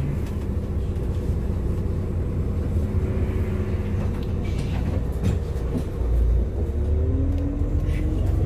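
Bus ride heard from inside: a steady deep engine and road rumble, with a faint whine that slowly rises in pitch near the end as the bus speeds up.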